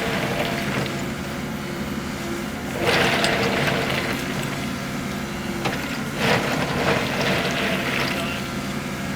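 Track hoe's diesel engine running steadily while its bucket drags and spreads crushed rock, with two surges of gravel scraping and sliding, about three seconds in and again about six seconds in.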